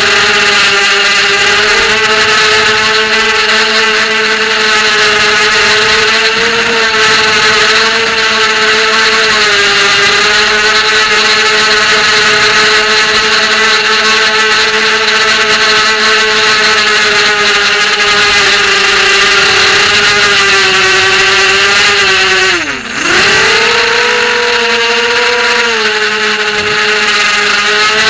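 FPV racing quadcopter's brushless motors and propellers whining in flight, the pitch wavering slightly with throttle. About 23 seconds in the whine drops sharply as the throttle is cut, then climbs back up as power comes back on.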